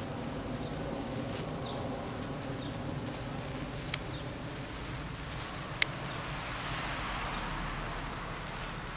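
A steady low droning hum, like a motor or engine running, with two sharp clicks about four and six seconds in.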